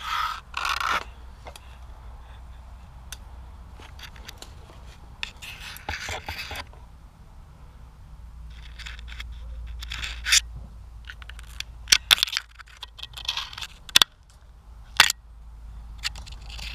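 Rustling and scraping close to the microphone in short bouts, with a few sharp clicks near the end, over a low steady rumble.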